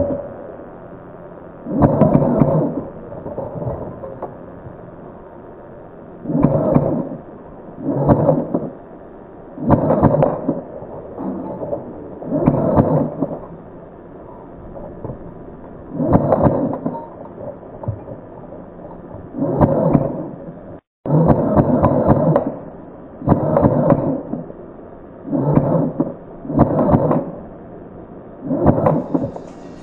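CM.028S airsoft AK-47S firing short full-auto bursts. Each burst lasts about a second, and there are about a dozen in a row, with pauses of one to three seconds between them.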